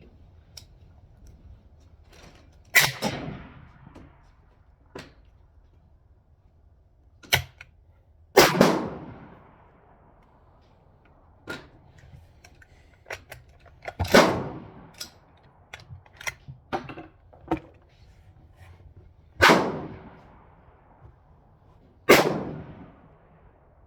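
Suppressed PTR .308 rifle firing five loud single shots a few seconds apart, each followed by a long echoing tail, with fainter sharp cracks and clicks between them. The rifle is jamming after every shot, which the shooters put down to it needing more gas and lubrication.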